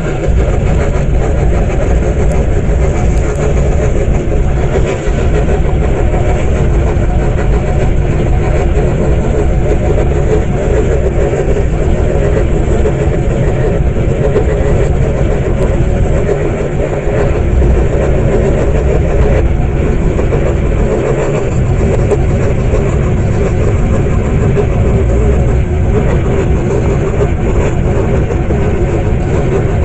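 Scroll saw running steadily, its reciprocating blade cutting through a thin wooden panel.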